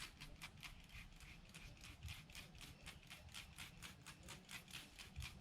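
Soapy water being worked onto a car tyre in quick, even strokes, making faint short hisses at about five a second.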